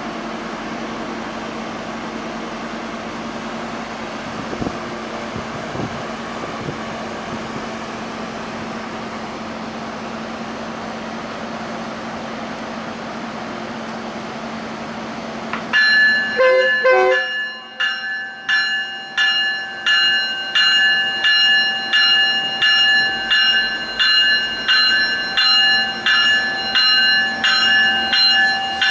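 Steady hum of a Tri-Rail commuter train standing at the platform. About sixteen seconds in, a railway bell starts ringing loudly and keeps on, about three rings every two seconds.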